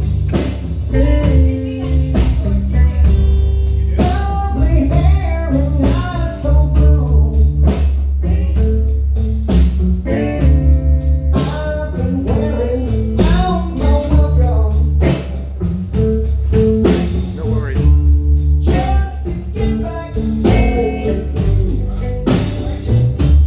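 Live band playing a blues-style song: a singer's vocals over guitar, with a steady drum beat.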